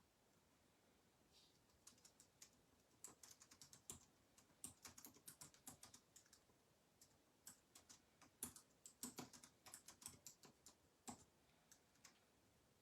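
Faint typing on a computer keyboard: quick, irregular key clicks in runs, starting about two seconds in and stopping about a second before the end.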